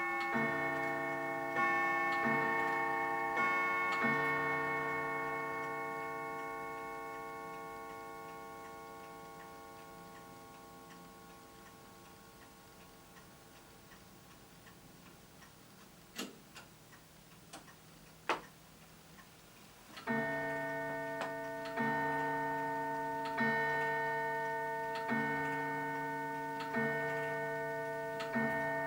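1875 Lenzkirch mantel clock striking on its two gongs. Near the start come alternating ting-tang blows that ring on and fade over about fifteen seconds. Two sharp clicks follow. Then, from about twenty seconds in, the hour is struck on one gong, a blow about every 1.7 seconds, each left ringing.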